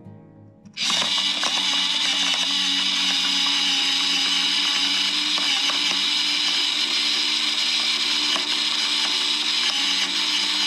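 Silvercrest SSPM 6 battery-powered electric pepper mill switching on about a second in and running steadily: its small motor whirs as it turns the burr and grinds peppercorns.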